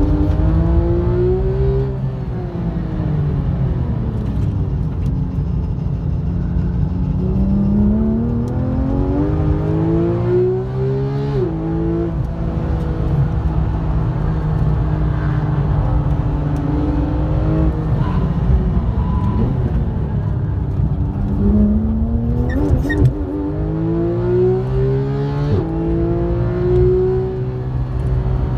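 Porsche 991 GT3's 3.8-litre naturally aspirated flat-six with an Akrapovič exhaust, heard from inside the cabin at track pace: the revs climb through the gears, dropping sharply at upshifts about eleven seconds in and again near the end, and fall away as the car slows about two seconds in.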